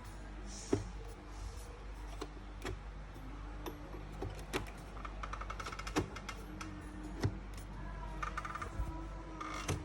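Scattered sharp clicks and light knocks, with short runs of rapid ticking, from parts being handled during a computer GPU module swap.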